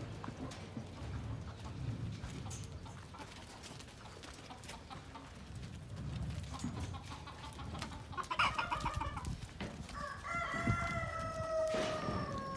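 A rooster crowing once near the end, one long call of about two and a half seconds that dips in pitch as it ends. About a second and a half before it comes a short, rapid stuttering call.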